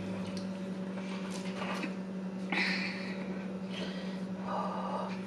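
Chewing and mouth sounds of someone eating a burger slider, in several short bursts, over a steady low hum.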